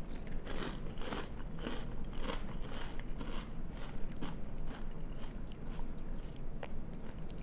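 A person chewing a mouthful of Malt-O-Meal cinnamon cereal squares in milk, with crisp crunches about two or three times a second.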